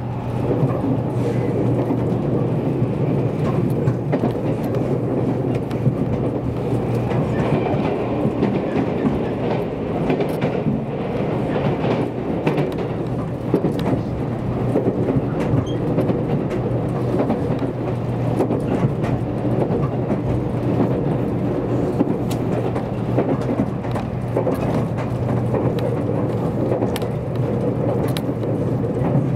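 Cabin noise of a JR Kyushu 783 series limited express electric train running at speed: a steady rumble with a low hum and scattered short clicks.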